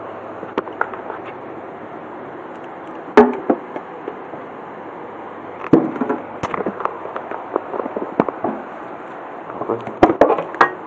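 Knocks, clicks and clatter from handling snack containers, a metal snack tin and plastic jars, over a steady hiss: one loud knock about three seconds in, a cluster around six seconds, and a quick flurry near the end as the tin is gripped to be opened.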